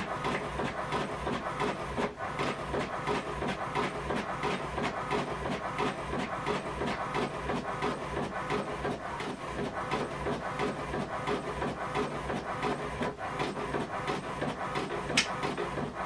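HP DeskJet Plus 4120 inkjet printer printing a page: the print carriage shuttles back and forth and the paper feeds through, giving a steady mechanical whirring. A sharp click comes near the end.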